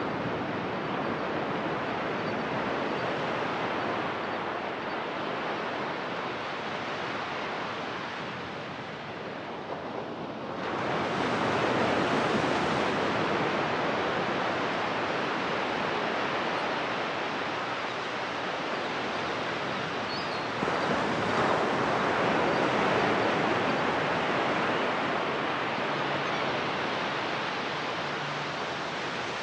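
Ocean surf breaking and washing up a sandy beach: a steady rushing wash that swells louder as waves break, about a third of the way in and again about two-thirds in.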